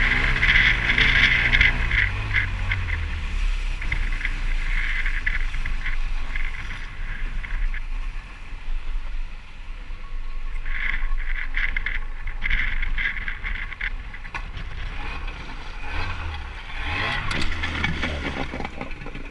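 Outboard motor driving a small open fishing boat, with water hissing and splashing along the hull. The engine note drops in the first few seconds as it throttles back, and it picks up again near the end.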